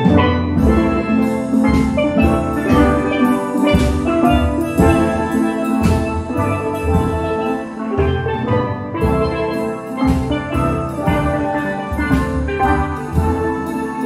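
Steel pan band playing a piece together: many ringing pan notes struck with mallets in a steady rhythm, with deep bass pans underneath.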